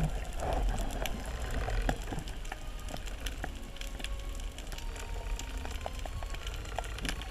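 Underwater crackle heard through a camera's waterproof housing: a dense, irregular patter of small clicks from snapping shrimp over a steady low rumble of moving water.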